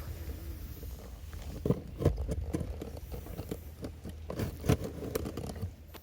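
Irregular crunches and scrapes of close-up handling, starting about two seconds in and stopping near the end, over a steady low rumble.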